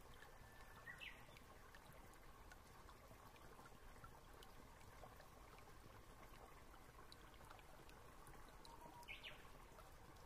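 Near silence: faint steady hiss of room tone, with two faint brief chirps, one about a second in and one near the end.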